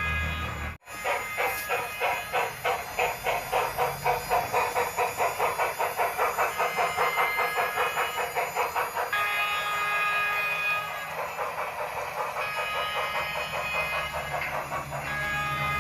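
Steam locomotive sound effects from a Union Pacific Big Boy model: steady exhaust chuffs at about three to four a second, with a chime whistle sounding in several tones in the second half.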